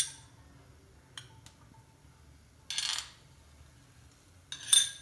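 Steel spoon clinking against a glass bowl and a non-stick kadhai while oil is spooned into the pan: a few light clicks, a brief rasp about halfway, and sharp ringing clinks near the end.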